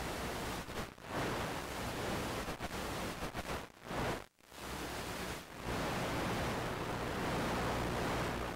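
Steady static hiss from an analog 5.8 GHz FPV video link's receiver, dropping out abruptly for brief moments several times in the first six seconds.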